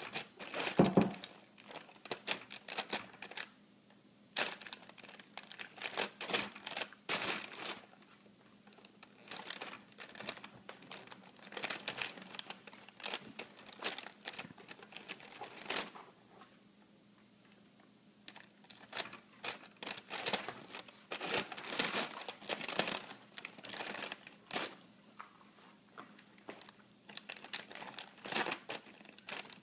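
Large clear plastic bag of tortilla chips crinkling and crackling in irregular spells as a baby's hand grabs and pats at it, with short pauses between; loudest about a second in.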